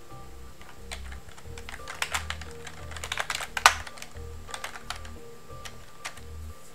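Computer keyboard being typed on: scattered keystrokes with a quick flurry in the middle and one louder key press just before the four-second mark. Under it runs background music with a low pulse about once a second.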